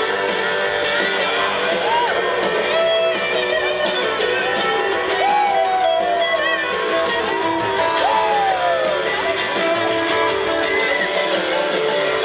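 Live country band playing through a PA: strummed guitars and mandolin under a lead line whose notes bend up and down.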